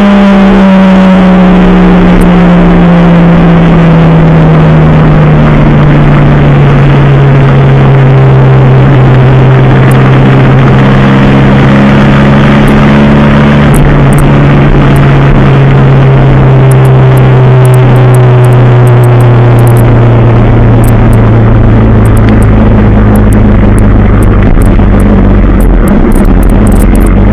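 Sport motorcycle engine running at speed, its pitch easing down over the first several seconds as the throttle is rolled off, then holding steady and dipping slightly near the end, under heavy wind rush on the onboard microphone.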